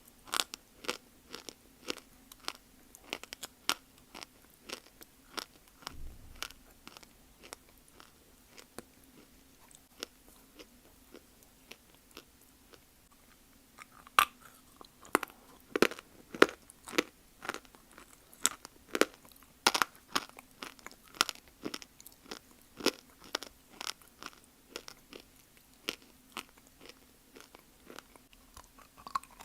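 Close-up biting and chewing of dry Multani mitti (fuller's earth clay): crisp, irregular crunches about one or two a second, thinning out and growing quieter for a few seconds in the middle.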